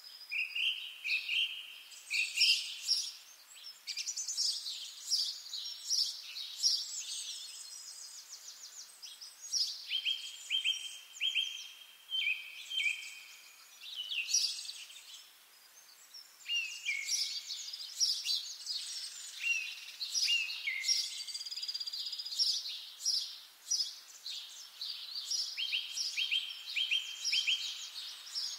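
Several songbirds singing at once: overlapping high chirps, trills and short repeated phrases, with a brief lull about fifteen seconds in.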